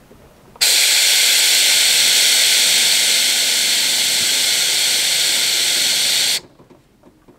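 Caravan airbag suspension venting air to lower the van for levelling: a loud, steady hiss that starts abruptly about half a second in and cuts off sharply about six seconds later.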